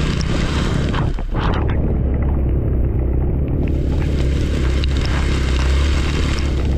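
Honda Dio scooter's engine running steadily while riding, with wind noise on the microphone.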